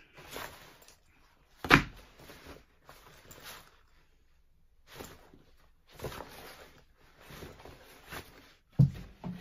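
A fabric backpack being rummaged through by hand, with scattered rustling and handling noises. There are two short loud thumps, one about two seconds in and one near the end.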